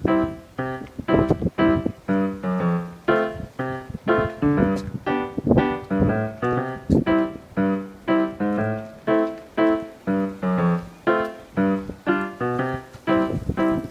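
Background music: a piano-like keyboard playing a steady run of single notes, about two a second.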